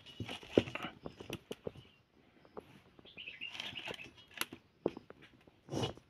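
Metal utensil tapping and scraping in an iron kadai over a wood fire: irregular clicks and knocks, with a longer scrape about three and a half seconds in and a heavier knock near the end.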